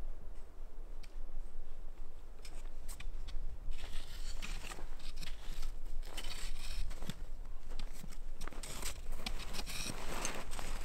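Footsteps crunching in packed snow on snow-covered wooden steps, with the tips of trekking poles clicking and scraping. The crunching is sparse at first and becomes dense and louder from about four seconds in, as the walker comes close.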